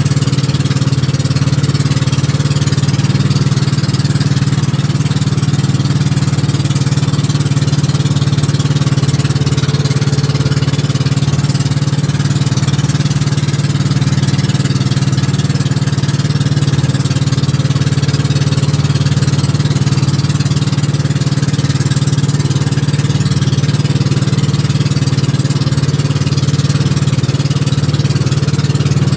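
Outrigger bangka boat's engine running at a steady cruising speed, a constant drone with an even rush of wind and water over it.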